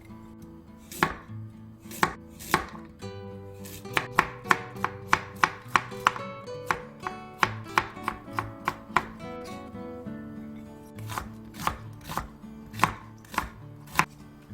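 Knife chopping vegetables on a cutting board: a few spaced strikes, then a quick run of about two to three cuts a second, slowing again near the end, over soft background music.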